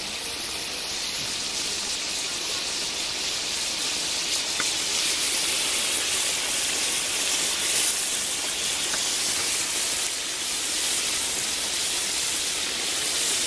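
Wok of spicy duck stew sizzling as it cooks, a steady, even hiss.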